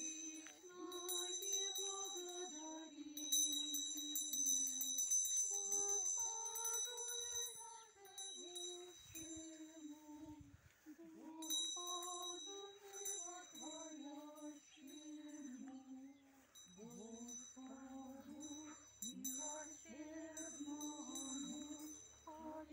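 Women's voices singing a slow hymn in unison, with small bells ringing at a high pitch over most of it.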